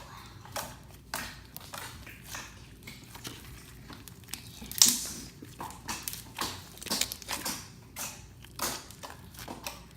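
Slime being squeezed and pressed by hand, giving irregular squishing and crackling pops, the loudest about five seconds in.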